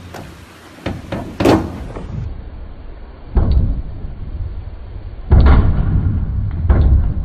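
Diving springboard banging as a diver bounces on it and springs off: a series of heavy thuds spread over several seconds, with a low rumble between them.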